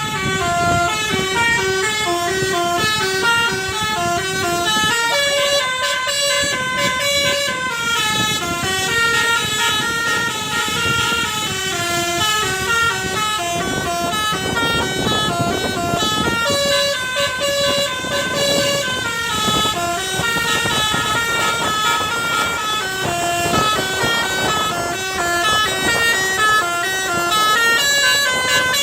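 Telolet bus horn, a multi-tone musical air horn, playing a continuous tune of held notes that step up and down, over background noise.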